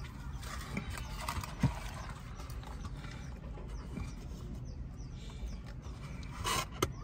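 Eating sounds: chewing with small wet mouth clicks, then a short sip through a drinking straw near the end, over a low steady hum.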